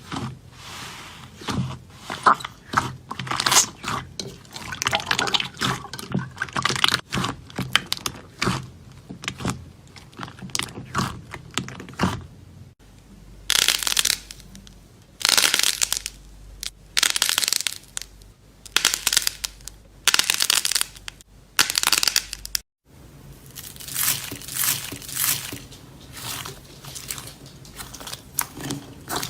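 Slime being squeezed and pressed, with dense crackling and crunching and short squelchy bursts. The sound changes abruptly twice, as one clip cuts to the next.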